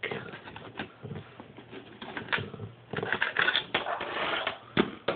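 Plastic Lego bricks clicking, rattling and scraping as a Lego-built iPod dock is handled and turned around, with a sharper knock near the end.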